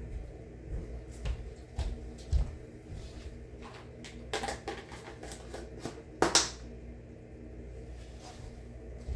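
Handling noise as a plastic food container and dog bowl are picked up and carried: a run of light clicks and knocks, then a sharper clack a little past six seconds in.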